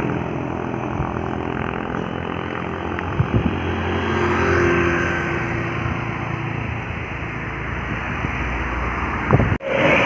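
Diesel engine of a bus overtaking on a steep uphill climb: a steady, heavy engine sound under load that swells a little around the middle and breaks off sharply for a moment near the end.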